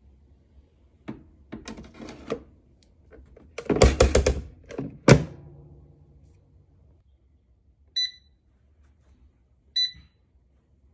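Metal wire rack clattering as it is slid into a Power AirFryer Pro oven, ending in a sharp bang as the door is shut about five seconds in. Then two short beeps from the touch control panel as its buttons are pressed.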